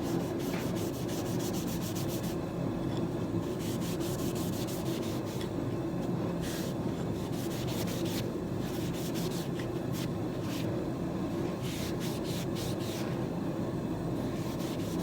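Finishing oil being rubbed by hand into a walnut knife handle, a continuous scratchy rubbing with irregular strokes, over a steady low hum.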